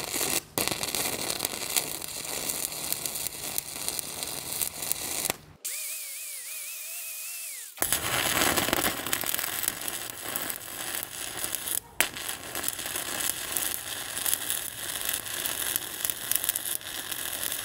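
Stick welding arc crackling and spitting as a 1/8-inch 7018 electrode burns at about 120 amps, in several short takes with abrupt cuts. For about two seconds in the middle the crackle gives way to a steady hiss with a wavering high tone.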